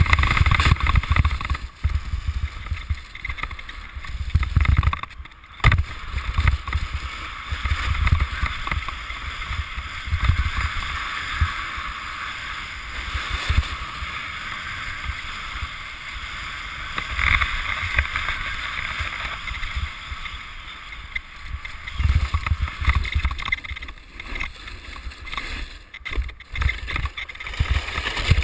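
Wind rumbling and buffeting a helmet-mounted camera's microphone on a fast snowboard run, over the steady hiss of the board sliding across firm snow. The rush dips briefly a few times.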